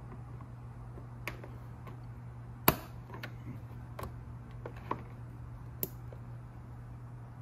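Plastic push-pin rivet being pried out of a scooter's plastic body panel with a screwdriver and worked free by hand: a handful of separate sharp plastic clicks, the loudest one about two and a half seconds in. A steady low hum runs underneath.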